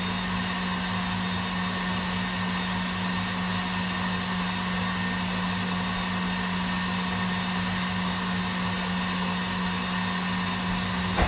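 Electric mixer motor running at a steady speed, mixing sugar paste (fondant) with colouring, with a constant hum. A brief knock comes right at the end.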